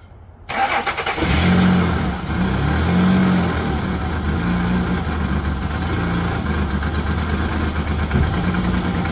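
Car engine starting about half a second in, flaring up for a couple of seconds, then settling into an uneven idle. It is running rough ("like crap"), which a later spray of brake cleaner around the intake shows is caused by a vacuum leak.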